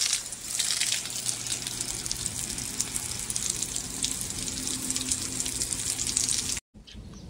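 Water gushing steadily onto the soil of a vegetable bed as it is flooded; it stops abruptly near the end.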